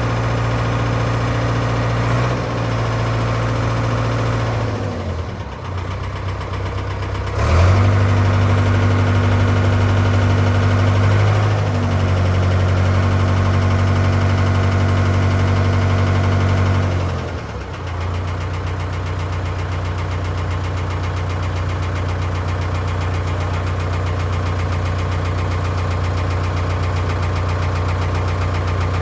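Diesel engine running steadily. About five seconds in it dips, then about seven and a half seconds in it runs louder for about ten seconds before settling back to its earlier steady run.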